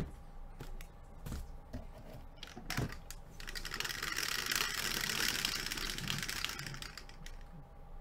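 Two dice rattling and bouncing inside a clear plastic dome dice roller: a few scattered clicks, then a dense, fast rattle lasting about four seconds that dies away as the dice settle.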